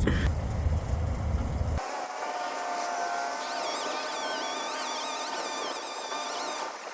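A low engine rumble for about the first two seconds that cuts off abruptly, followed by birds chirping over a faint steady hum.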